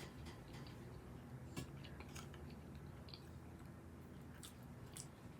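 Faint, close-up chewing of food, with scattered small wet clicks of the mouth.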